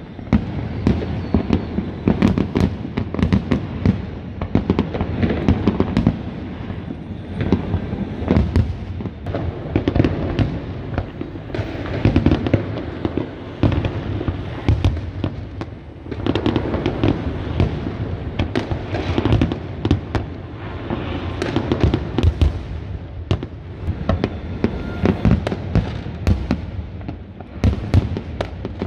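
New Year fireworks display: a dense, continuous barrage of bangs and crackles from many overlapping aerial bursts, swelling and easing in intensity.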